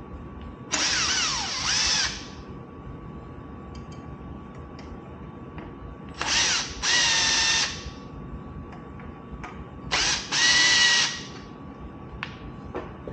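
Cordless drill-driver with a Phillips bit running in three short bursts of about a second and a half, a few seconds apart, backing out the screws that hold the e-bike controller's cover.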